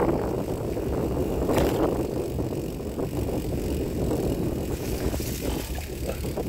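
Bicycle riding over a bumpy grass track: a steady rumble of the tyres with occasional knocks and rattles from the bike, and wind buffeting the microphone.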